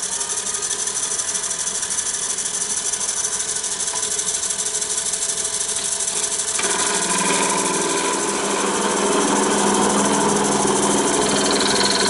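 Wood lathe running at raised speed while a tool cuts into the spinning wood to part off the base of an egg cup. About halfway through, the cut gets louder and rougher as the tool bites deeper, shortly before the piece separates.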